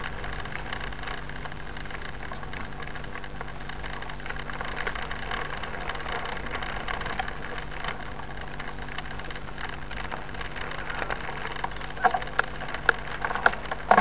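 Mountain bike tyres rolling over a loose gravel dirt road: a steady crunching crackle of stones under the wheels, with sharper clicks and rattles in the last couple of seconds.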